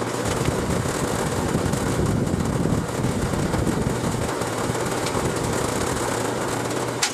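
Large drum fan running close by: a steady rush of air with a low motor hum.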